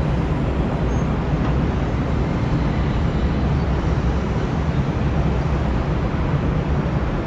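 Steady low rumble of a car driving along the road: engine and tyre noise with no distinct events.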